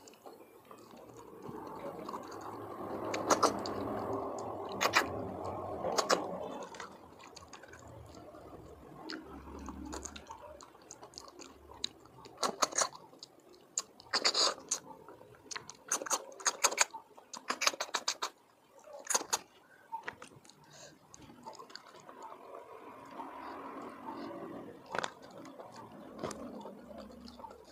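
Wet slurping and sucking as cooked golden apple snails are sucked from their shells and chewed, with sharp clicks in the middle stretch.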